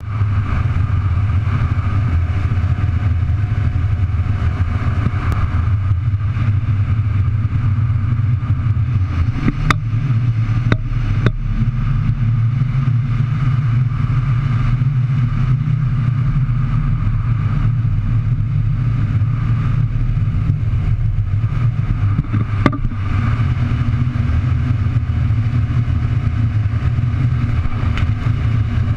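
Boat's outboard motor running steadily as the skiff moves across shallow water, with wind rushing over the microphone. A few sharp knocks come partway through.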